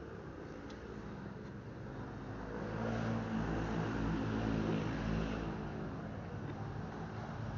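A motor vehicle's engine running steadily. It grows louder from about two and a half seconds in, is loudest for a few seconds, then fades again, as if passing by.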